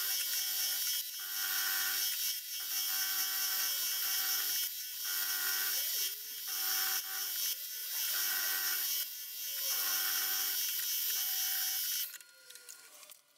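Milling machine end mill cutting a recess into an aluminium support, a steady hissing cut with a whining spindle note that breaks off briefly every second or two. The cutting stops about twelve seconds in.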